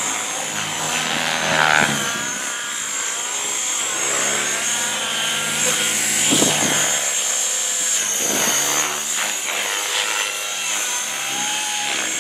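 Electric Gaui X3 RC helicopter flying 3D aerobatics. Its motor and rotor blades give a steady high whine, and the pitch swoops up and down as the blades load and unload through the manoeuvres.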